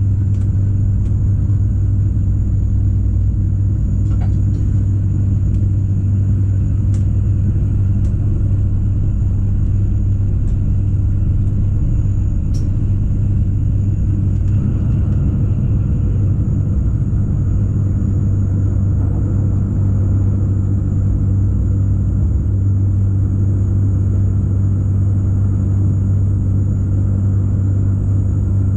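Rhaetian Railway ABe 8/12 electric multiple unit running steadily along the track, heard from the cab as an even low rumble with a few faint clicks.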